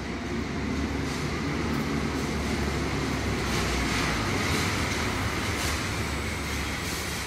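City bus approaching through an enclosed tiled busway tunnel: a steady engine and tyre rumble that grows gradually louder as it nears.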